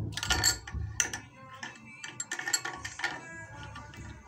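Irregular metallic clicks and scraping from a chrome basin mixer tap's swivel spout as it is pressed down into the tap body and twisted, seating its Teflon-taped joint to stop the leak; the busiest clicking comes in the first second.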